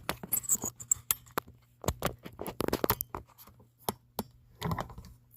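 Irregular clicks, knocks and short scrapes of objects being handled, over a faint steady hum.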